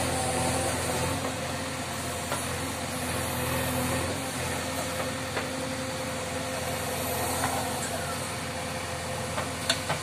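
JCB 3DX backhoe loader's diesel engine running steadily as the backhoe digs soil, with a few sharp knocks, two close together near the end.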